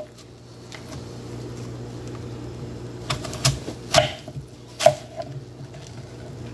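Kitchen knife cutting through apples and knocking on a wooden cutting board: several sharp knocks in the second half, over a steady low hum.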